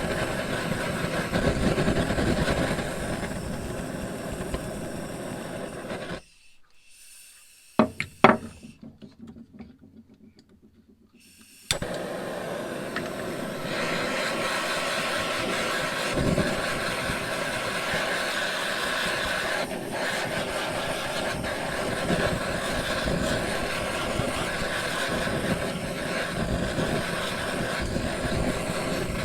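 A power tool motor running steadily, most likely a grinder, sander or polisher working the metal. It cuts out abruptly for a few seconds about a fifth of the way in, when two sharp knocks are heard, then runs on again.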